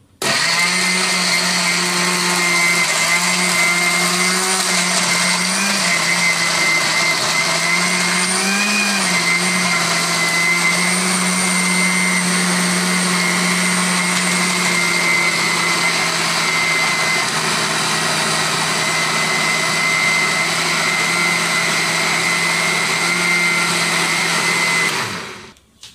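Countertop blender with a glass jar running, grinding turmeric, ginger, garlic, galangal and chillies with a little water into a paste. The motor starts suddenly and holds a steady pitch, wavering briefly twice as the load shifts, then winds down near the end.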